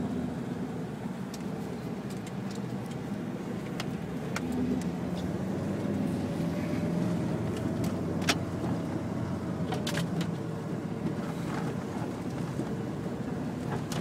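Jeep's engine running at low speed, heard from inside the cabin as it drives over rough off-road ground, with a few scattered sharp knocks and rattles.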